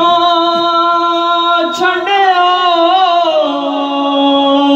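A man singing a Punjabi naat unaccompanied into a hand-held microphone. He draws out one long, ornamented note that wavers, slides down in pitch a little past three seconds in, then holds steady.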